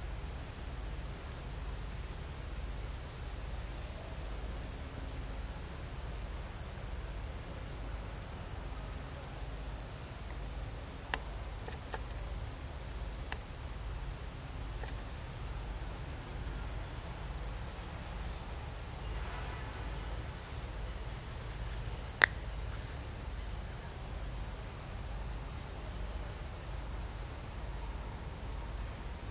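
Chorus of insects: a chirp repeating about once a second over a steady high-pitched whine, with a low rumble beneath. There are a few faint clicks, and one sharp click about three-quarters of the way through is the loudest sound.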